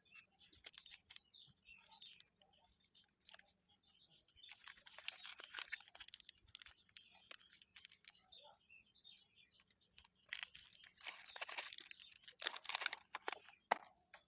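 Faint crinkling and crackling in several bouts from an M-seal epoxy putty pack being opened and handled, with birds chirping in the background.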